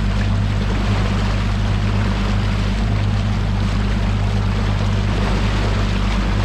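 Bass boat under way at speed: the steady drone of its outboard motor with the rush of wind and water against the hull.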